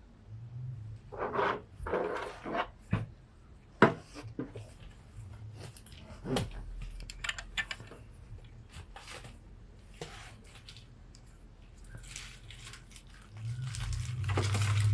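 Scattered sharp clicks, snips and rustling from hands handling things up close. A low steady hum sounds briefly near the start and again, louder, near the end.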